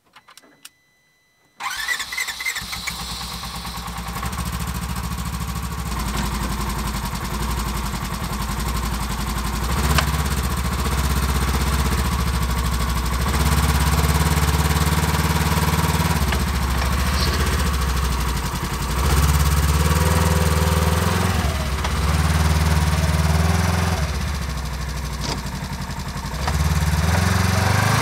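Polaris General side-by-side's twin-cylinder engine starting about a second and a half in, then idling and revving in repeated surges as the machine is driven backwards down the trailer ramps.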